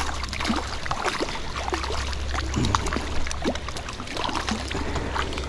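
Stream water running steadily, with scattered small splashes and sloshing from a hooked trout being played near the surface.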